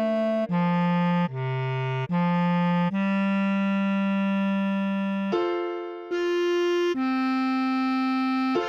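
Bass clarinet playing a slow melody one note at a time, with a reedy tone rich in overtones. One note in the middle is held for about two and a half seconds.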